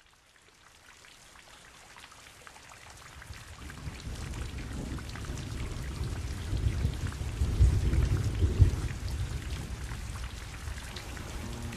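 Steady rain falling, fading in from silence and growing louder. About two-thirds of the way through, a low rumble of thunder swells and then eases.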